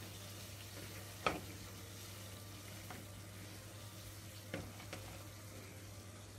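Pot of water at the boil bubbling faintly, with a few sharp plops as cornmeal dumplings are dropped into it, the loudest about a second in and two more close together around four and a half seconds.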